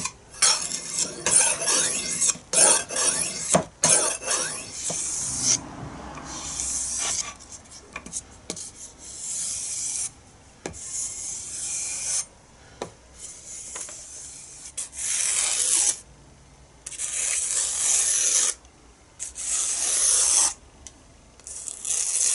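A carbon-steel knife blade being sharpened: quick back-and-forth scraping strokes on a sharpening stone for the first five seconds or so, then slower separate strokes, each about a second long with short pauses between, along a flat sharpening board. Near the end the blade slices through a sheet of paper to test the edge.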